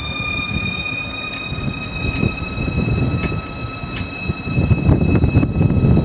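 ICE 4 high-speed trainset pulling along, its electric traction motors giving a high whine that rises slowly in pitch as the train gathers speed; during these tests only 8 of its 20 traction motors are powered. A few sharp clicks come from the wheels, and a low rumble grows louder about halfway through.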